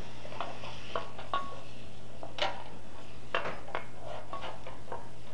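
A spoon clinking and knocking against a frying pan while mushrooms and bell peppers are stir-fried, in irregular knocks every half second or so, the loudest about two and a half seconds in.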